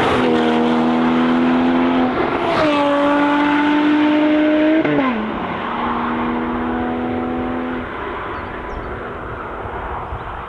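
Sports car engine accelerating hard, its note stepping in pitch at gear changes about two and five seconds in. It then runs steadily and fades as the car moves away.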